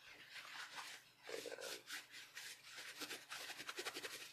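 Paper towel rustling and rubbing in many quick, irregular strokes as it wipes oil and metal shavings off a freshly hobbed bolt, faster in the second half.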